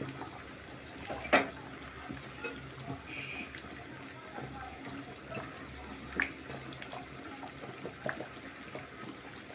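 Beef meatball curry simmering in a metal pot, a low steady bubbling. One sharp metal clink comes about a second in, and a couple of lighter knocks of utensils against the pot follow later.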